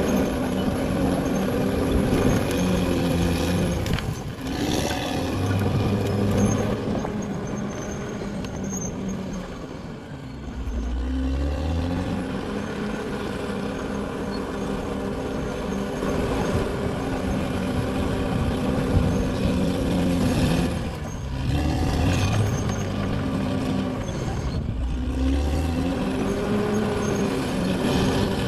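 Caterpillar D6R XL bulldozer's diesel engine working steadily, its note rising and falling several times as it loads up and eases off.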